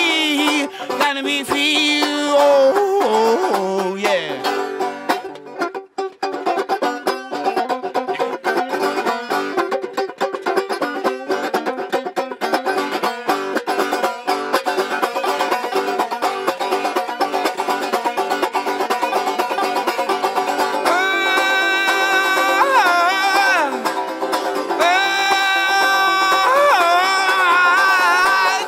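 Banjo strummed in a fast, steady blues rhythm, with a man's wordless vocal wails over it at the start and again through the last several seconds.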